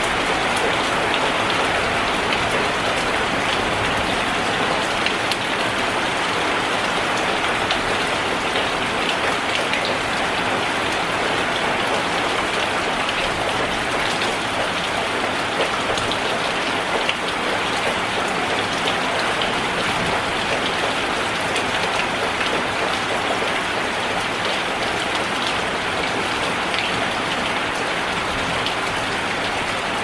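Heavy rain falling steadily on a corrugated metal roof and concrete walls: a constant hiss of dense drops that keeps the same strength throughout.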